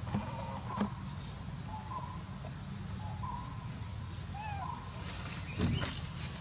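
Scattered short chirping calls, one every second or so, over a steady low rumble, with a thump about five and a half seconds in.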